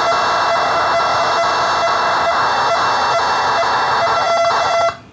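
Old home-computer data recording played back from cassette tape: a shrill, steady multi-tone signal with a harsh data warble, pulsing about three times a second, cutting off suddenly near the end.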